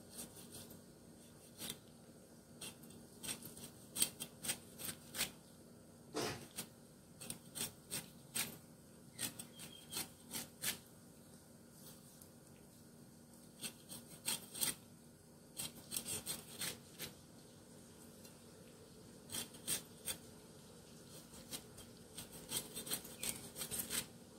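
Large kitchen knife cutting the rind off a whole pineapple on a wooden board: short rasping strokes in irregular runs, with a couple of brief pauses.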